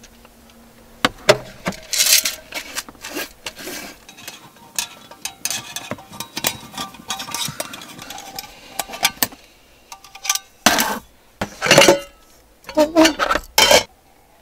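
Metal camping cookware being handled and set down on a small table: a mug, a kettle and a coffee dripper clink and knock. The clinks come irregularly, with a cluster of the loudest knocks near the end.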